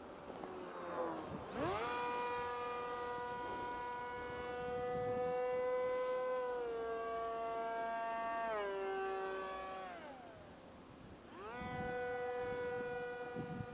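Electric motor and propeller of a Multiplex Shark RC plane whining in flight. It spools up sharply about one and a half seconds in, holds a steady high pitch, steps down in pitch twice, winds down near ten seconds in as the throttle comes off, then spools up again a second later.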